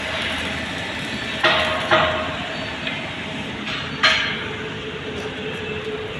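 Hammer striking steel: three loud ringing blows, with a couple of lighter taps between them, over a steady hissing noise.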